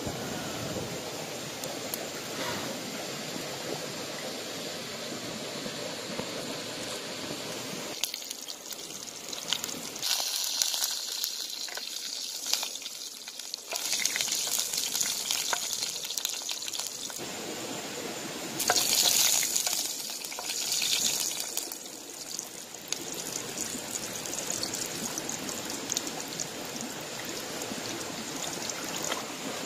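Water running in a shallow rocky stream, with louder spells of gushing, splashing water about ten seconds in and again just before twenty seconds, the second the loudest.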